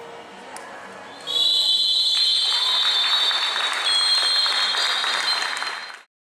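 A long, steady, high whistle blast starts about a second in and holds for nearly five seconds, joined a second later by applause and cheering from the crowd in the arena. The whistle is typical of a futsal match's final signal. Both fade out together near the end.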